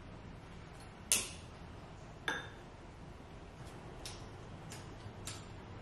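A few short, sharp clicks and taps as lamps and small household items are handled, over a faint steady room hum. The two loudest come about one and two seconds in, with softer ticks near the end.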